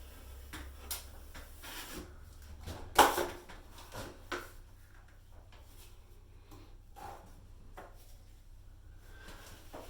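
Intermittent scrapes and knocks of a drywall knife working joint compound, with one sharp knock about three seconds in.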